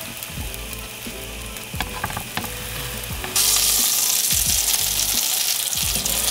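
Burger buns and patties sizzling in a frying pan, with a few light clicks; the sizzle gets louder about three seconds in.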